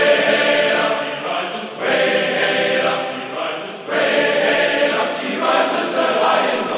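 Background music: a male choir singing a sea shanty, the phrases separated by short breaks about every two seconds.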